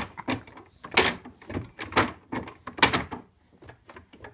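Small wooden cabinet door being banged and rattled by a toddler: loud wooden knocks about once a second with lighter clicks between, dying down after about three seconds.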